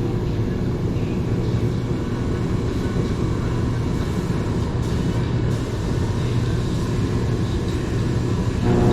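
Steady low mechanical hum of shop machinery running constantly while paint is sprayed, with a droning tone that holds an even pitch.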